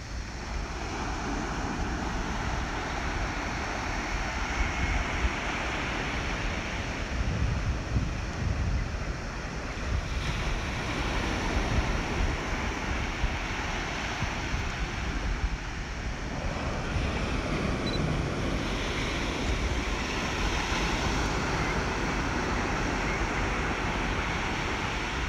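Outdoor wind rushing and buffeting on the microphone, over a steady wash of sea surf that swells and eases every few seconds.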